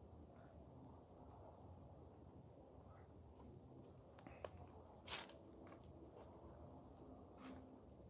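Faint night ambience: a cricket chirping steadily, about four or five chirps a second, over a low background rumble. A few sharp clicks break in, the loudest about five seconds in.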